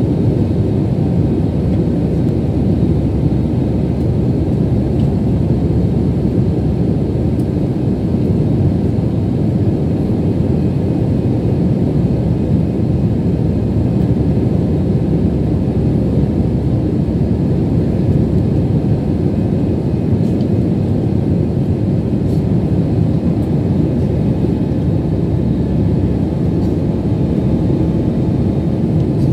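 Jet airliner cabin noise heard from a window seat over the wing: the engines and airflow make a steady, deep rush that does not change.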